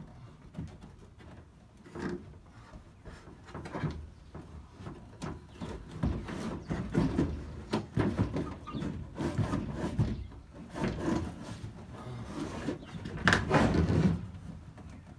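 Moulded plastic cab headliner of a Mercedes Sprinter being worked loose and pulled down from the roof: irregular creaking, rubbing and knocking of the trim against the roof frame, busier and louder in the second half.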